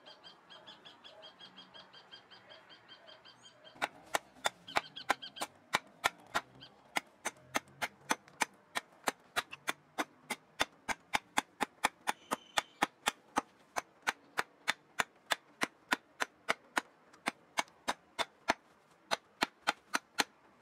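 A homemade bushcraft knife forged from a car leaf spring chopping into a wooden stick in quick, even strikes, about three sharp knocks a second. The chopping begins about four seconds in.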